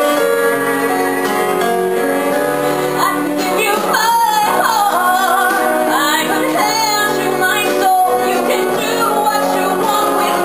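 A woman singing into a microphone with piano and cello accompaniment; the piano plays on its own for the first three seconds or so before her voice comes in.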